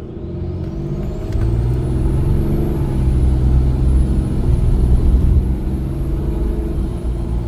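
Ram 2500's 6.7 Cummins inline-six turbodiesel pulling hard under full throttle, heard inside the cab. The engine note builds, and the whistle of a DDP Hooligan billet VGT turbocharger rises sharply in the first couple of seconds as it spools, then holds high and steady.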